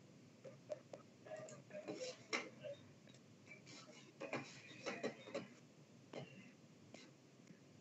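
Faint, irregular clicks and taps over quiet room tone.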